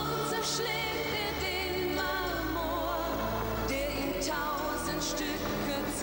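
A Schlager song: a woman singing over a band's instrumental backing, with her held notes wavering.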